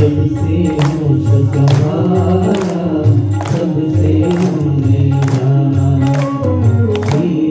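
Devotional Shiva bhajan sung over instrumental accompaniment, with a sustained low tone underneath and a percussion strike with jingles keeping a steady beat a little faster than once a second.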